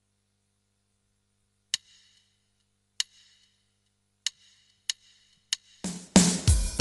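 Five sharp clicks counting in the band, two slow then three quicker, then a band comes in loudly near the end with the instrumental intro of a song.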